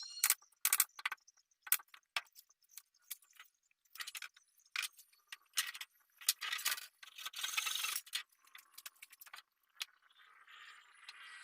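Irregular sharp metallic clicks and clinks, like small metal hardware or tools being handled, with a longer rattling stretch about two-thirds of the way through. Near the end a faint steady hiss comes in.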